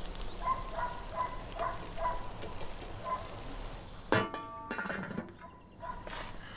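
A metal cauldron lid clanks and rings briefly about four seconds in as it is lifted off the pot, followed by lighter metal clatter. Before it, short repeated high animal calls sound in the background.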